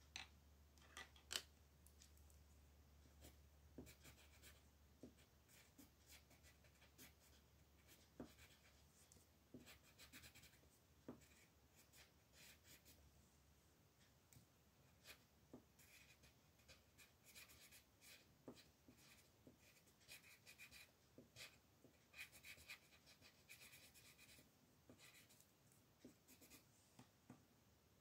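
Faint scratching strokes and light clicks of fingers and long acrylic nails on a paper colouring-book page, coming thicker after about halfway.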